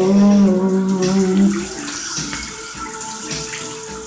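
A man singing a long held note in the shower over the hiss of the running shower. The note drops away about a second and a half in, leaving the water with a fainter held tone.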